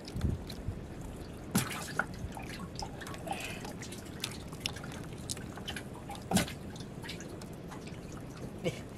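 Water dripping and splashing at the surface beside a small wooden boat as a handline is worked and small sardines are lifted out. A scatter of small drips and splashes, with sharper ones about one and a half seconds in and again past six seconds.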